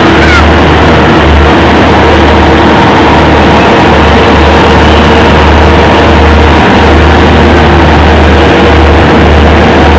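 Diesel engines of the self-propelled heavy-haul transporter carrying the space shuttle, running steadily at close range: a loud, constant hum with a rumble underneath.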